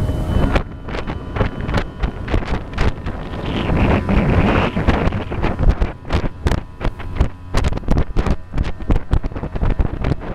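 Heavy wind buffeting the microphone in irregular gusts, over the low steady drone of a boat motor running on the water.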